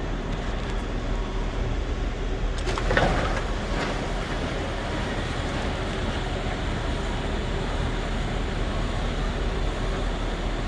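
Sectional overhead garage door being raised, a steady rumble of the door travelling in its tracks, with a brief louder clank about three seconds in. It runs without binding.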